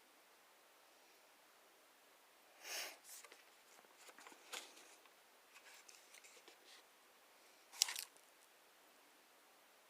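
Faint handling of product packaging: a short scrape about three seconds in, scattered light clicks and rustles, and a sharper brief scrape near the end.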